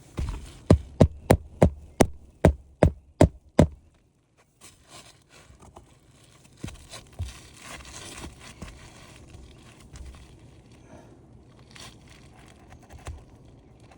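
Hammer blows on a roof, about three a second, stopping abruptly about four seconds in, followed by faint scraping and rustling on the shingles.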